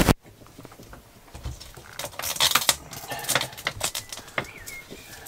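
A plastic fizzy-drink bottle being handled and its screw cap twisted on: a run of small plastic clicks and crinkles, densest about two seconds in.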